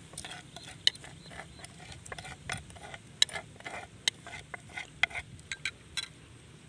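Metal spoon scraping and clinking against the inside of a mortar as pounded chili sauce is scooped out into a bowl. The sharp, irregular clicks come a few a second and stop about six seconds in.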